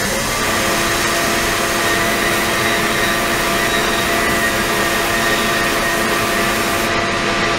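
Ultrasonic cleaning tank running with water flowing in through a nozzle: a steady rushing noise with several steady hum tones, which come in about half a second in.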